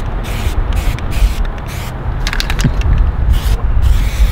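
Aerosol spray paint can spraying in a series of short hisses with brief breaks between them, as letters are written stroke by stroke, with a few sharp clicks a little past halfway. A steady low rumble runs underneath.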